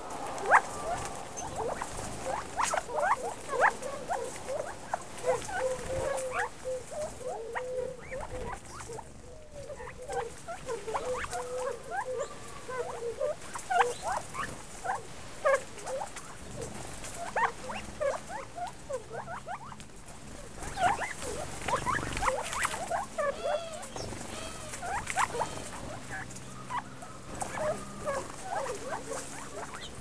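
A covey of Gambel's quail feeding on the ground, giving many short, soft chirps and squeaky contact calls, with a low warbling call about five to ten seconds in. There is light pattering of the birds pecking and stepping on the gravel.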